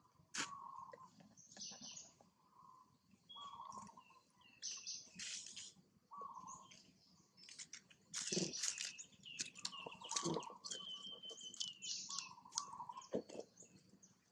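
Young long-tailed macaques giving short, high squeaky calls over and over, with higher chirps among them and dry leaves crackling as the infants scramble about.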